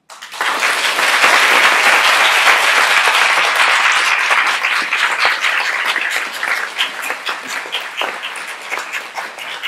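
Audience applauding. The clapping starts suddenly and is loudest over the first few seconds, then slowly thins out into more scattered, separate claps.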